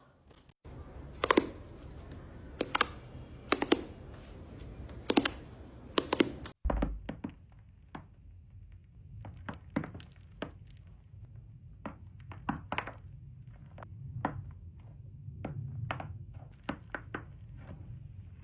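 Slime being squeezed and poked by hand, giving sharp pops and clicks over a low hum: a few loud pops about a second apart, then after a cut to another clip many smaller, quieter clicks.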